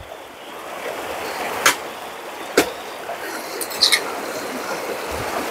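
Steady rush of running stream water, with two sharp knocks about a second apart near the middle.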